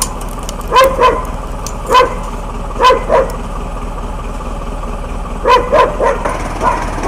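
A dog barking repeatedly, about ten short barks in loose groups of two or three, over a steady background noise.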